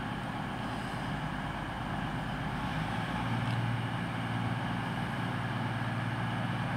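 Underfloor diesel engines of a four-car Class 220 Voyager train running steadily at the platform, the low note getting louder about three seconds in as the train powers up to depart.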